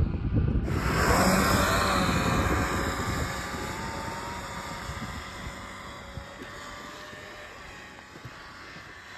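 Snowmobile engine running hard. It comes in abruptly under a second in, then its pitch drops slightly and it fades gradually over the following seconds.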